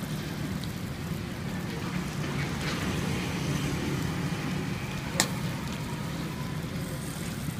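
Charcoal grill crackling and hissing under skewered fish, over a steady low rumble of traffic, with one sharp click about five seconds in.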